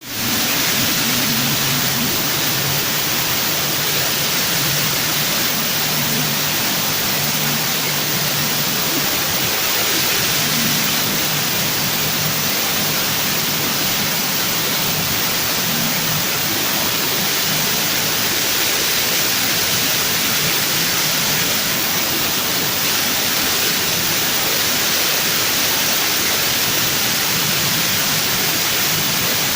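A steady, loud hiss of noise with no distinct events.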